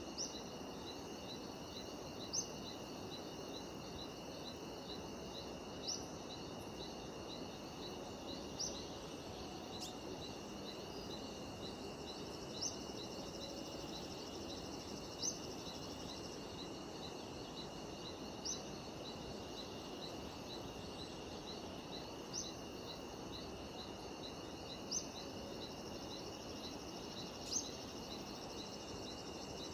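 Cicadas and other insects calling steadily, with a fast, even chirping pulse over a constant buzz. A short rising note repeats every two to four seconds above it and is the loudest sound.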